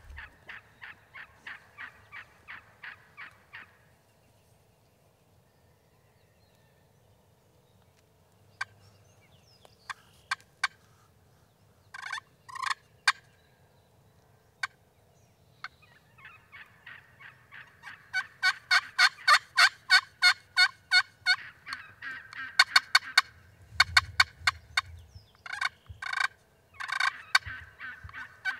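A wild turkey hen yelping and a ceramic friction turkey call yelping back to imitate her, as a hunter calls a hen in. A run of quick yelps at the start gives way to a lull with a few scattered notes. The second half holds long, louder runs of yelps, one series answering the other.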